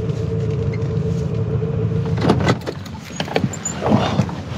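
Van engine idling steadily, then switched off suddenly about two seconds in. Clicks and knocks follow as the driver's door is opened and the driver climbs out.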